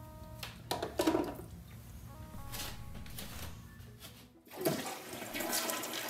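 A radio splashes into a toilet bowl full of water about a second in. About four and a half seconds in, the toilet flushes: a sudden rush of water that keeps swirling and gurgling around the submerged radio.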